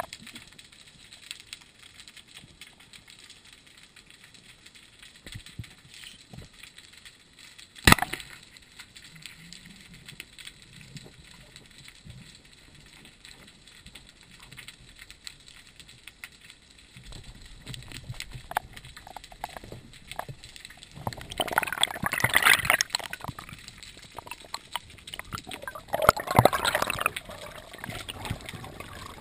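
Underwater sound through a dive camera's housing: faint crackling, then a single sharp crack about eight seconds in, a speargun shot. Near the end come two loud bursts of gurgling, rushing water and bubbles.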